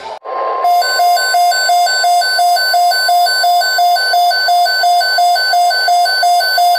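Weather radio receiver's alert alarm beeping rapidly, about three shrill beeps a second, signalling an incoming alert; a brief steady tone sounds just before the beeping starts.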